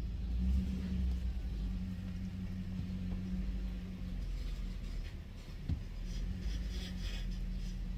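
Pickup truck engine running at low revs, heard from inside the cab while the truck is reversed. A steady low hum drops away about halfway through, and there is a single knock a little later.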